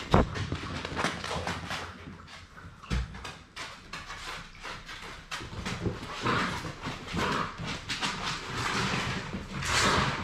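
Labrador Retriever puppies scampering about, their claws clicking on a hard floor, with scuffling on a blanket. There is a loud knock just after the start as a puppy bumps into the camera, and a thud about three seconds in.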